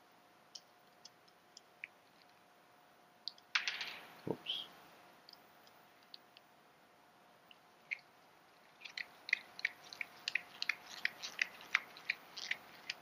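Hand screwdriver turning screws into the mounting clips of an underwater LED light: faint scattered clicks, a brief louder rustle a few seconds in, then a quick run of small clicks about four a second over the last few seconds.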